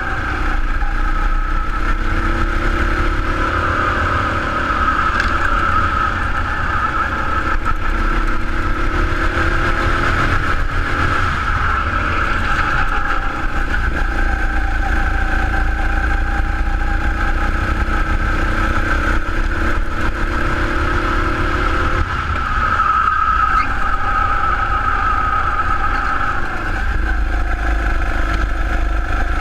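Rental go-kart's four-stroke engine running hard through a lap, heard from on board. Its pitch rises and falls several times as the throttle opens on the straights and eases for the corners.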